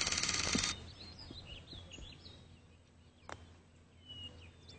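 A fast, loud rattle of rapid clicks for the first moment, then birds chirping over quiet outdoor background, and a single sharp click about three seconds in: a putter striking a golf ball.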